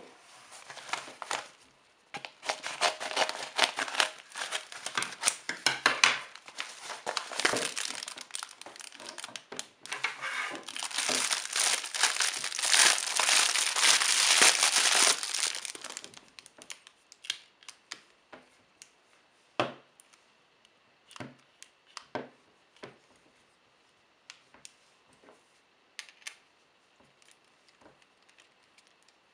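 Crinkling and rustling of a clear plastic bag and paper wrapping as a clamp mount is unwrapped, dense and continuous for the first half and loudest just before it stops. After that, scattered small clicks and taps of the plastic clamp and ball-head mount being handled and a small camera fitted onto it.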